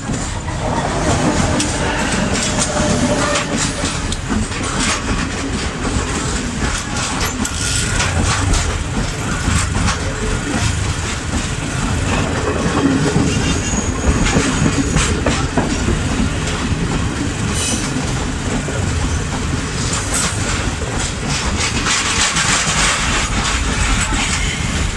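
Diesel express train passing close at speed: a loud, steady rumble of carriages with sharp wheel clacks over the rail joints.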